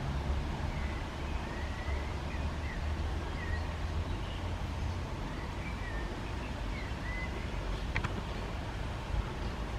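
Outdoor garden ambience: a steady low rumble under faint, short bird chirps, with a single click about eight seconds in.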